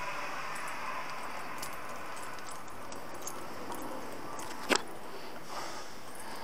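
Small metal keys hanging at the waist jingling and clicking with each step on stone stairs, over a steady hiss, with one sharp click near the end.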